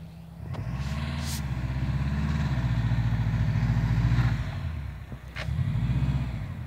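Car engine revving up and down under load as the car works through deep snow. There is a sharp click about a second and a half in and another about five seconds in.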